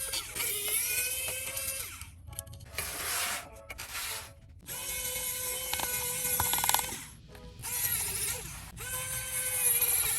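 A small handheld electric tool's motor running in several short spurts, spinning up and down at each start and stop, with scattered clicks in between.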